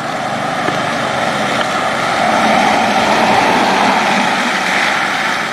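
An SUV driving past on wet asphalt, tyres hissing on the water with the engine running. It grows to its loudest a few seconds in, then eases a little.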